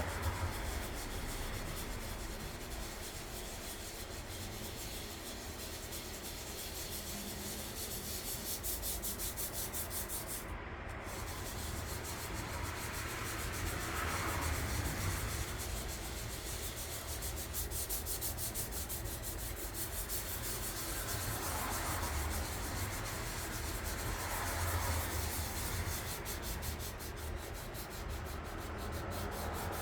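Sandpaper rubbed by hand over the primed hood of a 1958 Johnson outboard motor, in continuous back-and-forth strokes. The sanding is smoothing out small divots and imperfections in the primer.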